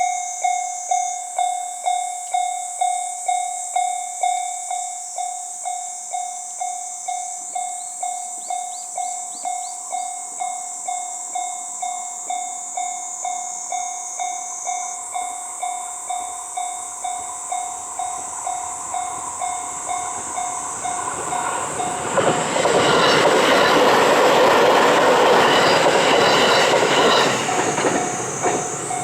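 Japanese railroad crossing warning bell ringing steadily, about two strikes a second. A train passes over the crossing for about five seconds near the end, its wheels clattering loudly over the bell.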